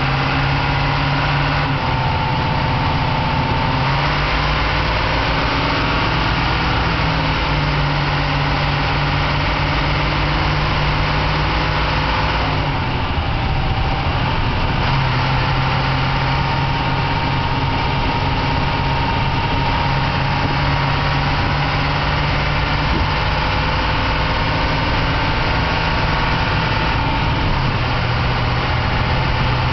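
Perkins V8-540 diesel engine of a 1979 Dennis RS fire engine running on the road, with the Allison automatic gearbox. Its steady note steps up and down in pitch several times as the gearbox changes gear, and a whine sounds above it.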